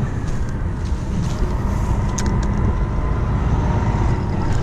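Steady low rumble of a nearby motor vehicle's engine, with a few light clicks about two seconds in.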